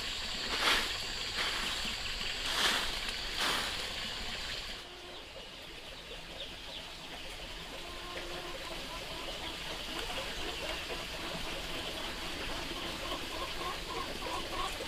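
A long bundled grass broom sweeping a concrete path: a few loud swishing strokes in the first four seconds. After about five seconds the sweeping stops and a quieter outdoor background with faint bird chirps takes over.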